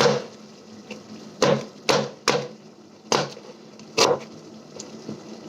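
Knife chopping onion on a chopping board: about six sharp, irregularly spaced knocks.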